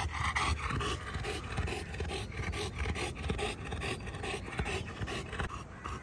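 A Saint Bernard panting with its tongue out, a quick, even run of breaths: the dog is tired out from play.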